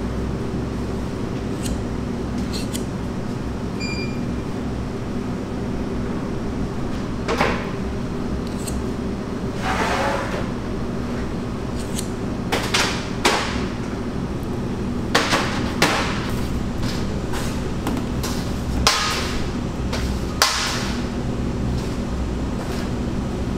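Steady hum of commercial kitchen equipment, with scattered clicks, taps and short scrapes of a metal spatula against a stainless steel bowl as cream cheese is spread onto bagels. The longest scrape comes about ten seconds in, and two sharper knocks come near the end.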